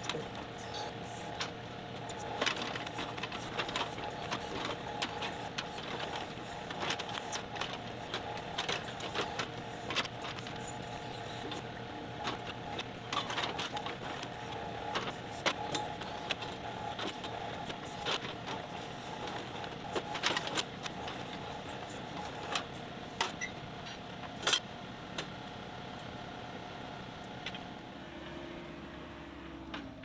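John Deere 2038R compact tractor's three-cylinder diesel running steadily while its backhoe digs out a stump, with frequent sharp knocks and clanks from the bucket working through roots and dirt. Near the end the knocking stops and a lower tone slides down in pitch.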